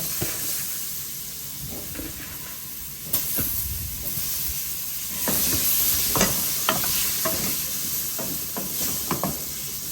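Potatoes sizzling in a pot of fried curry and masala, with a spoon clinking and scraping against the pot as they are stirred. The sizzle grows louder about five seconds in.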